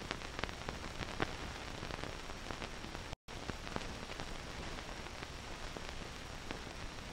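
Surface noise of an old film soundtrack: steady hiss with scattered crackles and pops, broken by a brief, complete dropout about three seconds in.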